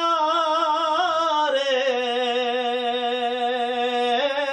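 A man singing a naat unaccompanied, drawing out one long held note: ornamented turns at first, then a steady sustained pitch that steps up near the end.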